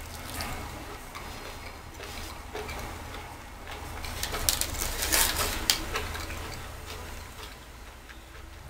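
Eating a slice of veggie pizza close to the microphone: chewing with crisp, clicky crunching that grows to a dense cluster of clicks around the middle, over a low steady hum.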